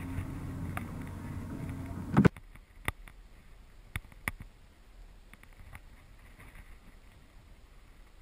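Obsession Fusion 6 compound bow shot: one sharp thump about two seconds in, followed by a few faint ticks. A steady low hum underneath stops at the thump.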